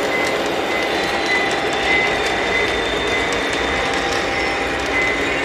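Model train running along the layout track: a steady rolling and motor noise with a thin, high steady whine and faint clicks from the wheels.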